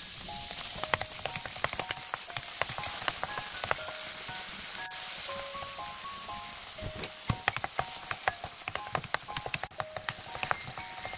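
Abalone and its innards sizzling in butter in a nonstick frying pan as they are stir-fried, a steady hiss crowded with small spattering pops. A soft background melody plays over it.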